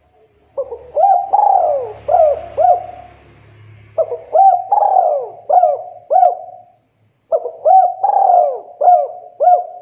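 Spotted dove (tekukur) singing in full voice: three cooing phrases, each about two and a half seconds long and made of several quick notes that rise and fall, with short pauses between them.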